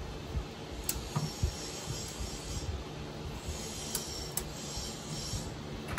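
A wrench being worked on a bolt under a pickup's frame: a few sharp clicks, one about a second in and two close together around four seconds in, over a steady low hiss.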